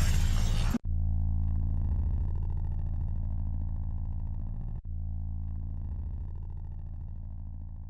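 Music cuts off abruptly under a second in, leaving a low, steady, deep-pitched drone that slowly fades, broken by brief dropouts about four seconds apart.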